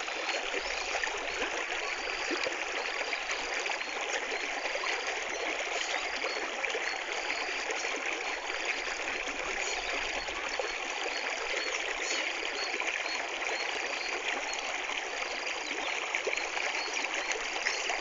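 Water flowing steadily like a shallow stream, an even rushing trickle. A faint high chirp repeats about once a second.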